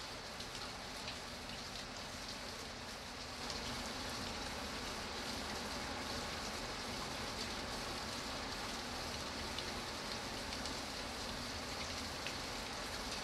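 Steady rain falling: an even hiss with scattered faint drop ticks. It grows slightly louder about three and a half seconds in, then holds steady.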